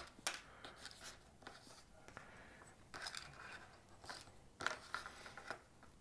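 Faint scattered clicks and short rustles of hands handling insulated wire and a soldering iron on a workbench mat, busiest near the end.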